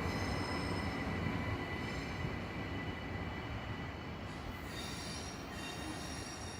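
A train moving along the track with its wheels squealing on the rails: several high, steady squeal tones over a low rumble, growing slowly quieter.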